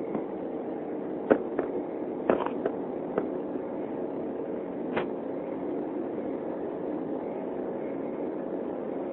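Steady cabin noise of an Embraer 195 airliner in flight, its GE CF34 turbofans and the airflow making an even rushing hum, broken by several sharp clicks in the first few seconds and one more about five seconds in.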